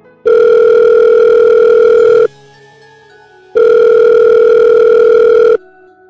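Telephone ringing tone: two long, loud electronic rings of about two seconds each, a little over a second apart.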